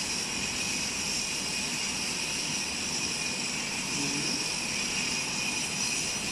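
Electric angle grinder cutting into a concrete road surface with a steady high-pitched whine, grinding a slot for a vehicle loop detector wire.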